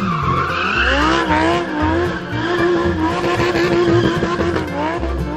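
Racing-car engine sound effect revving up and down, then holding a steady pitch, with a brief tyre-squeal hiss near the start. Background music with a pulsing bass line plays underneath.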